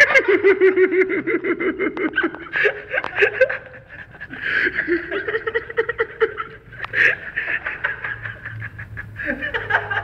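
People laughing in quick, repeated bursts of giggling.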